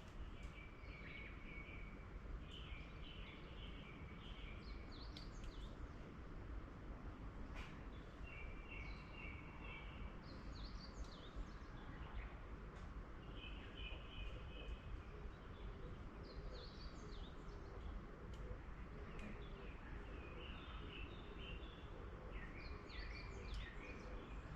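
Small forest birds chirping: short phrases of rapid high notes repeating every second or two, over a faint steady background hiss and rumble.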